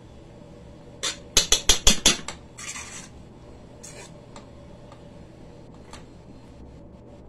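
A spoon knocking against a pot of cooked white rice: a quick run of about seven sharp knocks about a second in, then a short scrape through the rice and one more knock about four seconds in.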